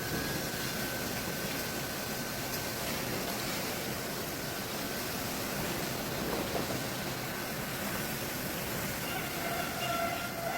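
Sawmill machinery running with a steady, even noise; near the end a faint steady whine comes in.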